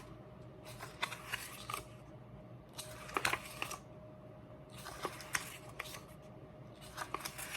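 A CD album's packaging being handled and opened: crisp rustling and small clicks come in four short bursts, with quiet pauses between them.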